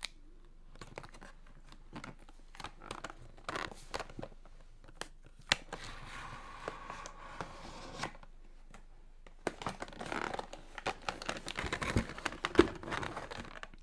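Packaging being crinkled and torn: scattered crackles and rustles, thickening into a dense run of crackling in the last few seconds.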